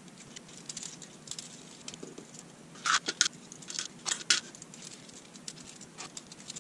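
Small screws and nuts being backed out with a precision screwdriver and dropped into a small cup: scattered light clicks and taps, with a few louder clatters about three and four seconds in.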